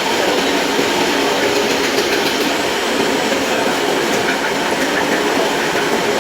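Yamaha FZ-S V2's single-cylinder engine running with a steady, loud mechanical clatter, the engine noise problem that calls for a full service and new bearings.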